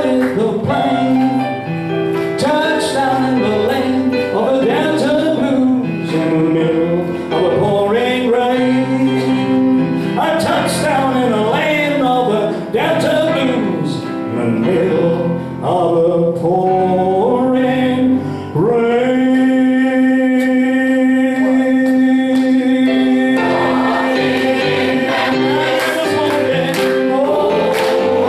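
Gospel vocal group singing a song, with a long held note about two-thirds of the way through.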